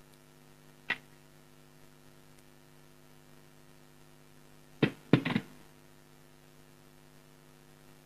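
Steady electrical mains hum from the studio's audio equipment, broken by a faint click about a second in and a pair of short, louder sounds about five seconds in.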